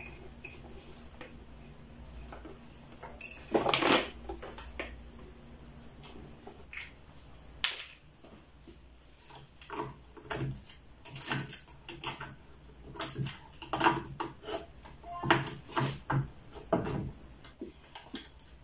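Hand work on a washer-dryer's aluminium heater duct: metal clatter and knocks as the housing is moved, loudest about three to four seconds in, then a run of short quick clicks as a screwdriver works at the heater's wire terminals.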